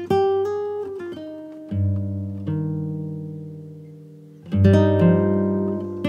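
Background music on plucked guitar: notes ring out and fade, with a fuller chord about four and a half seconds in.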